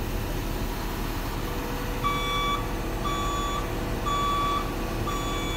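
A vehicle's reversing alarm starts beeping about two seconds in, about once a second, each beep about half a second long, over a steady low machine hum.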